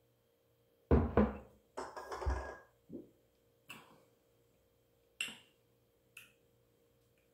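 Glass beer mug set down on a wooden table: two heavy knocks about a second in, followed by a short rustling noise and a few small clicks.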